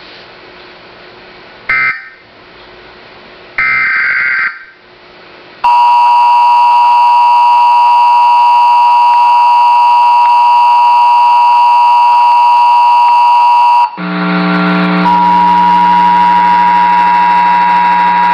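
Emergency Alert System test tones. Two short data bursts of the digital header come first. Then the loud, steady two-tone attention signal sounds for about eight seconds and cuts off suddenly. It gives way to a lower, buzzier steady tone for the last few seconds.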